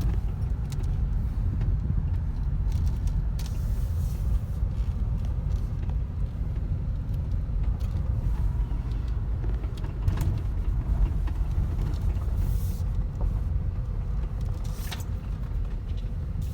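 Car driving slowly, its engine and tyres making a steady low rumble heard from inside the cabin, with a few faint clicks or knocks along the way.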